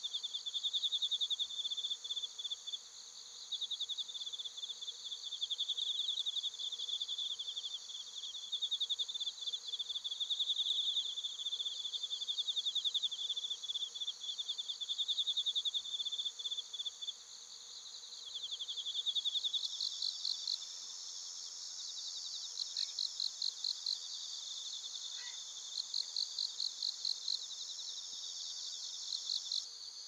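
A chorus of autumn night insects, crickets among them, chirping and trilling steadily at a high pitch. About two-thirds of the way through, a second insect joins with rhythmic chirps in short repeated runs.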